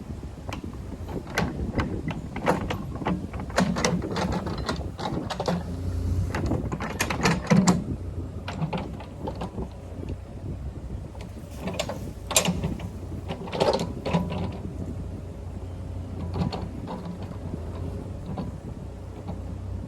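A work machine's engine running steadily, with repeated sharp metal clanks and knocks as the machine pushes on a fence post to twist it back into line. The engine hum grows stronger about six seconds in.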